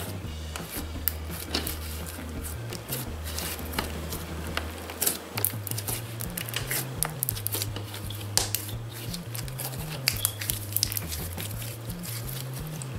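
Slime being kneaded and squeezed by hand, squelching with many short, sharp clicks and pops, over background music with a low bass line.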